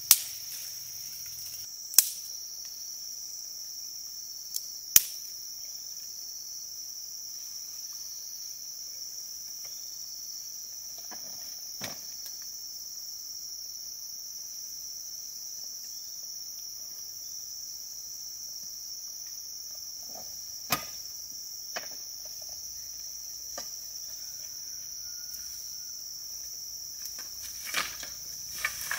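Steady high-pitched chorus of insects. A few sharp knocks cut across it: the loudest right at the start and at about two and five seconds in, one more about twenty seconds in, with softer rustles between them.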